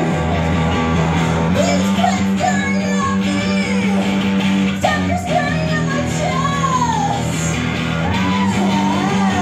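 Live band playing a song: electric guitar with a singer's voice sliding in pitch over it.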